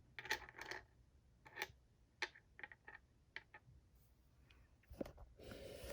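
Faint, irregular light clicks and taps of small parts of an incense burner set being handled and set in place.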